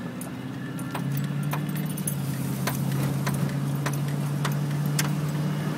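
Car engine and road noise heard from inside the cabin while driving, the engine note stepping up in pitch about a second in, with light clicks and rattles scattered throughout.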